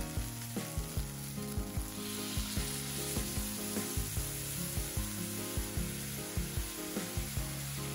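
Soy-based teriyaki sauce poured into a hot frying pan of pan-fried chicken strips, sizzling and steaming in the oil; the sizzle swells about two seconds in as the sauce hits the pan.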